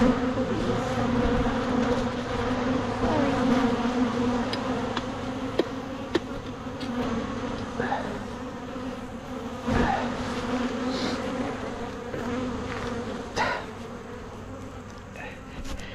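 Honeybees buzzing around an open hive: a steady, dense hum that eases slightly toward the end, with a few light clicks.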